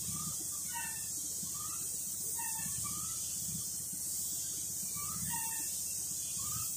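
Compressed-air spray gun hissing steadily as it sprays HS clear coat, with short chirps repeating every second or two behind it.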